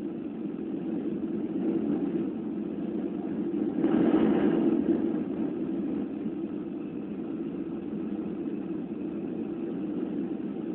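Steady engine and airflow noise inside the cabin of a Boeing 737 on its landing approach, with a louder swell lasting about a second, four seconds in.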